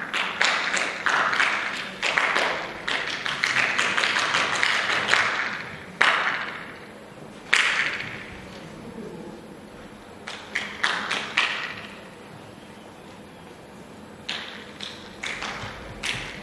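Irregular sharp knocks and cracks, dense and rapid at first, then two single strokes with a ringing tail, then further short clusters.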